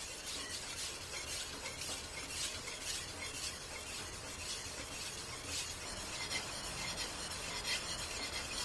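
Master Kuo G-5 fish knife being sharpened on a Naniwa 1000-grit Goken Pro whetstone: the blade scrapes back and forth across the stone in even strokes, about two a second.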